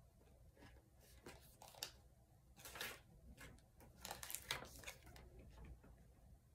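Faint rustling and sliding of guidance cards being handled, a string of short brushing sounds.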